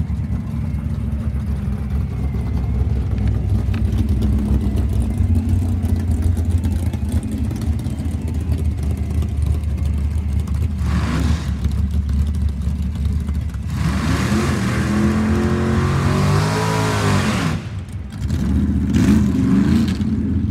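Drag-race cars idling at the line, then one car does a burnout. The engine revs hard and holds high for several seconds over the hiss of spinning rear tyres, then drops off and is blipped a few more times.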